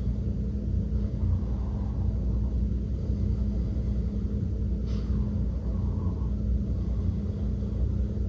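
Steady low rumble with a constant low hum running under it, and a single short click about five seconds in.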